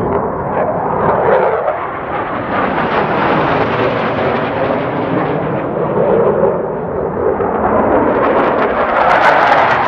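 Jet noise from a pair of F/A-18 Super Hornets' twin turbofan engines passing overhead, a loud, rushing noise that swells and eases. It gets louder near the end, with a sharp crackle.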